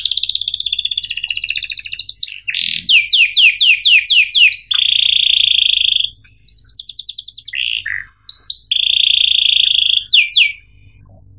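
Domestic canary singing a rolling song: fast trills, a run of quick downward-sweeping whistles, and two long even buzzing rolls, breaking off near the end.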